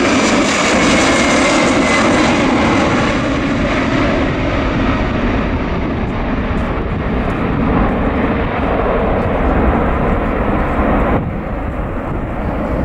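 Four PS-90A turbofan engines of an Ilyushin Il-76TD-90VD at takeoff power as the jet climbs away: a loud rumble with a whine that falls in pitch in the first couple of seconds. The whine fades as the aircraft recedes, leaving mostly the low rumble, which steps down abruptly near the end.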